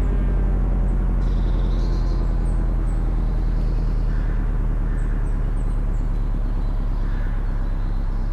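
Federal Signal 500AT tornado siren winding down, its falling tone fading out in the first half second, leaving a steady low rumble. Faint bird chirps come and go.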